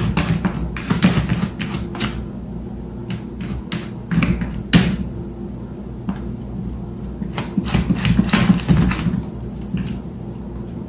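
A cat pawing and batting at a lidded plastic storage bin: quick runs of taps and scrapes on the plastic in several bursts with short pauses between.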